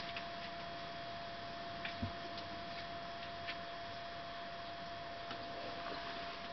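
Quiet room tone: a steady faint hiss with a thin constant whine, broken by a few soft scattered ticks and a dull tap about two seconds in.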